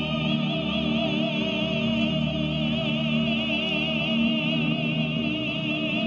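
Stage singers holding one long note with a wide vibrato in an operatic style over a sustained musical accompaniment.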